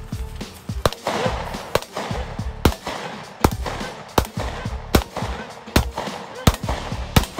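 Gunshots on a backyard range: a steady series of about ten shots, a little under a second apart.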